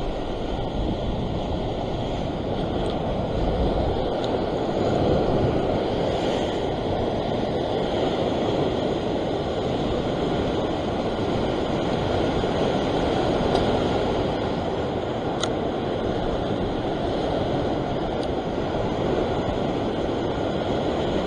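Ocean surf washing against a rock ledge: a steady rushing noise that swells and eases a little.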